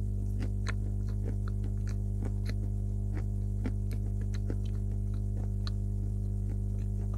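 Dry chalk being chewed close to a lapel microphone: small soft crunches and clicks, irregular, about two to three a second. A steady low electrical hum runs underneath.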